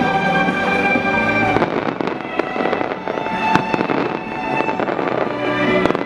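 Fireworks going off over music with long held notes: many quick pops and bangs, the sharpest one about three and a half seconds in.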